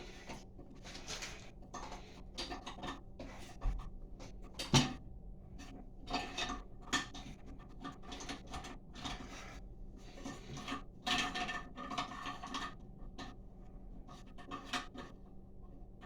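Irregular handling noises from the plastic flush-valve tower, lever and washer in a toilet tank: scattered clicks, scrapes and rustles, with one sharp knock about five seconds in.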